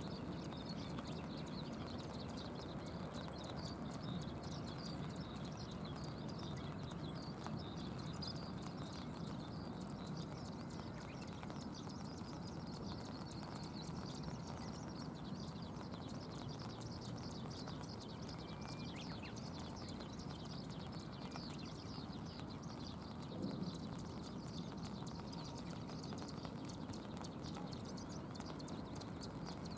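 Steady outdoor ambience in rain by a river: a low, even rush with a fine patter of raindrops, and one brief thump about two-thirds of the way through.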